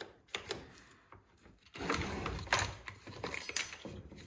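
Hand-handling noise of a cut-off saw's carburetor and linkage parts: a few sharp clicks, then about two seconds of quick clicking and rattling of plastic and metal parts as the carburetor is worked loose.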